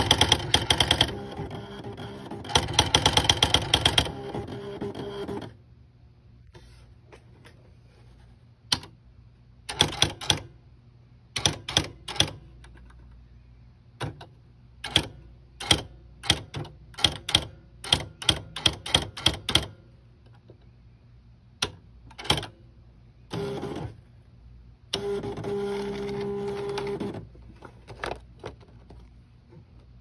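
Smith Corona electronic typewriter printing. It opens with fast runs of rapid print strikes over a motor hum, then types single characters as sharp clacks in short groups, and near the end a motor buzzes with a steady hum for about two seconds.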